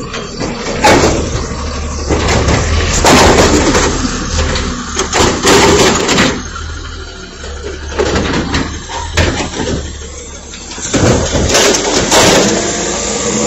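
Automated side-loader garbage truck with a natural-gas engine running steadily while its hydraulic arm lifts and tips a recycling bin: a string of bangs and clattering crashes as the bin knocks against the truck and its contents fall into the hopper.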